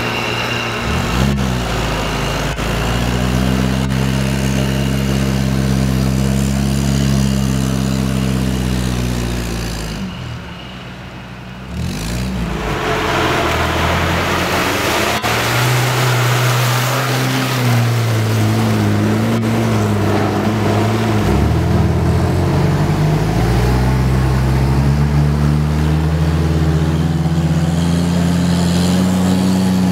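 Small 4x4 engines revving and labouring in mud, their pitch rising and falling with the throttle: first a Suzuki Samurai, then, after a short quieter break about ten seconds in, a Lada Niva pulling up a muddy rutted climb.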